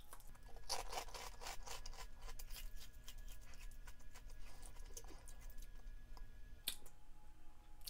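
Close-up crunching of crispy fried pork rinds (Mac's Cracklin' Curls) being chewed: a quick run of sharp crackles that thins out as the chewing goes on, with one last loud crunch near the end.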